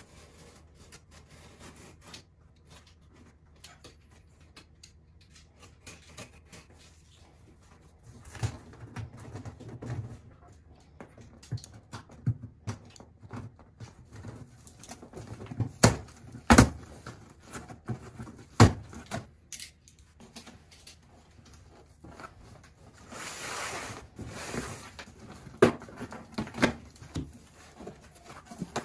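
A large cardboard shipping box being cut open and unpacked: hands scrape over the cardboard while a blade slits the packing tape, and three sharp knocks come about halfway through. A longer rustling tear follows as the flaps are pulled open.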